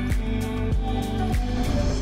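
Background music with held notes and a steady beat, about three beats every two seconds, fading out near the end.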